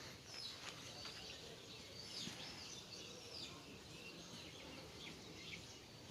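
Faint outdoor background noise with small birds chirping, a cluster of short chirps a couple of seconds in.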